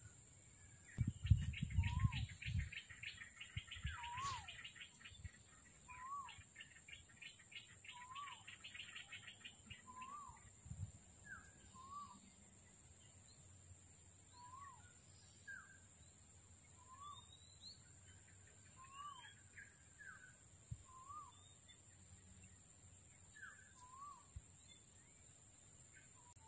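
A bird repeating a short rising-and-falling call about every two seconds. A fast rattling chatter runs over the first ten seconds or so, and a few low thumps come in the first few seconds.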